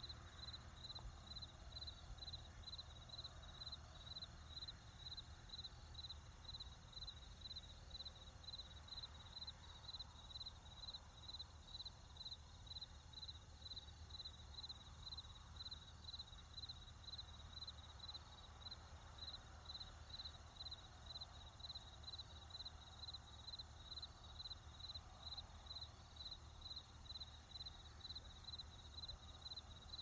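A cricket chirping in a steady, even rhythm of about two short, high chirps a second, held at one pitch throughout.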